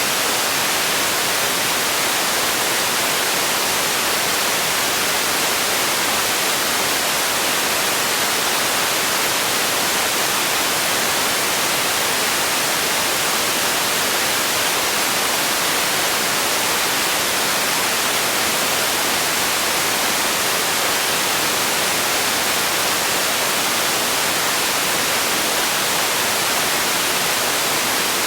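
Steady white noise: an even, unbroken hiss that does not change.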